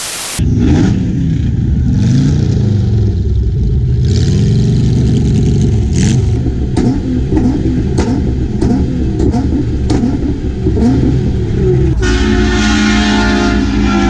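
A short burst of TV static, then a sports car's engine revving hard, its pitch swinging up and down repeatedly, with several sharp cracks. Steady held tones come in near the end.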